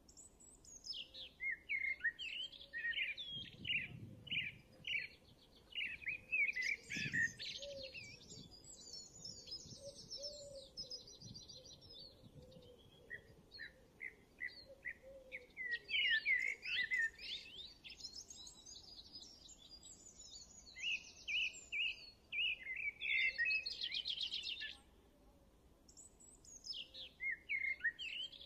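Songbirds singing: many quick high chirps and trills in clusters, with a couple of short lulls.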